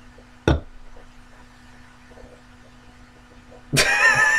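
A single sharp knock about half a second in, then a steady low hum. Near the end comes a loud, drawn-out wordless vocal sound that wavers in pitch: an amused exclamation.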